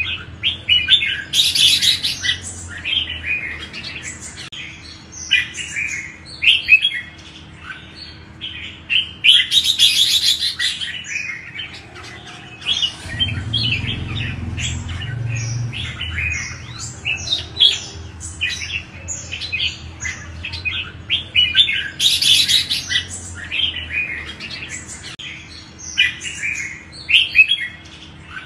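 Red-whiskered bulbul singing: a steady run of short, quick chirped and whistled phrases, broken three times by a harsher, scratchy burst of chatter. A low rumble comes in briefly about halfway through.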